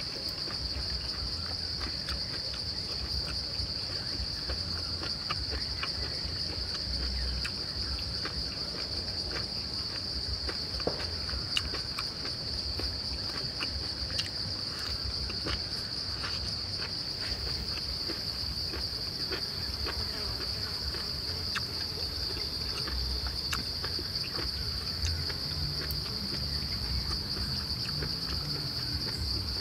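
Steady, high-pitched chorus of insects droning without a break, with scattered faint clicks beneath it.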